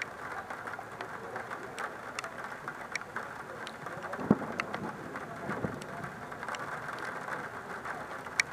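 Heavy rain falling on a wet surface and on the action camera's housing. A steady patter is dotted with close drops that hit as sharp ticks, with one louder hit about four seconds in and another near the end.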